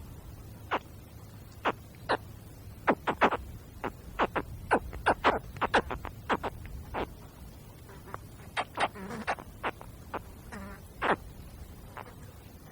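Young spectacled caiman calling: an irregular series of short, sharp chirps, some coming in quick pairs, over a steady low rumble.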